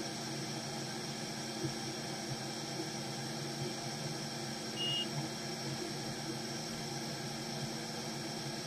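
Steady low hiss and hum of workbench room noise, with one short, high electronic beep a little under five seconds in.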